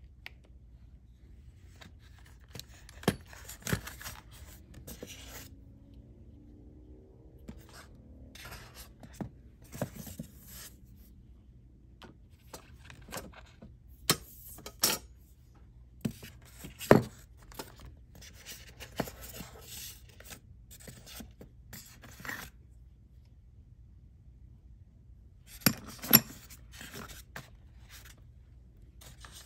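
Handling noise from the packed box: scattered knocks and clicks with stretches of scraping and rubbing as the polystyrene foam packing and the parts in it are touched and moved. The sharpest knocks come about three seconds in, around seventeen seconds and near twenty-six seconds.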